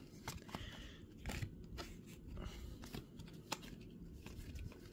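A stack of glossy Topps baseball cards being thumbed through by hand, each card slid off the stack onto the other: faint, irregular clicks and light rustling of card stock, with one sharper click about three and a half seconds in.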